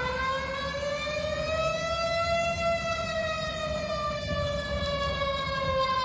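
Malaysian public warning siren in one long wail, its pitch rising slowly for the first half and falling slowly for the second, over a low background rumble.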